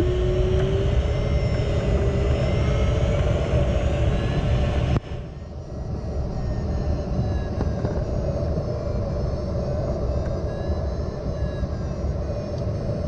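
Steady airflow noise around a Nimbus 3DT glider's cockpit in flight. About five seconds in, the rush drops suddenly to a quieter, duller level and carries on steadily.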